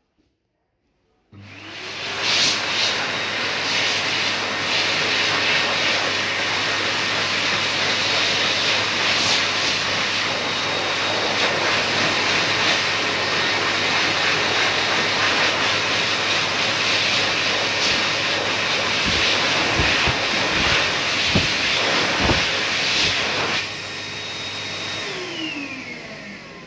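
Heatstore Tornado hand dryer running: starting about a second in, a loud, steady rush of blown air with a motor hum. Near the end the airflow drops and the motor winds down with a falling whine as the dryer switches off.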